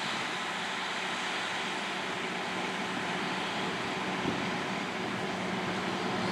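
A steady engine drone with an even hiss over it, unchanging throughout.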